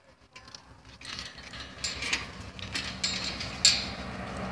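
Chain-link fence wire rattling and clicking in scattered sharp clinks as a hand reaches through it and rubs against it while petting a puppy.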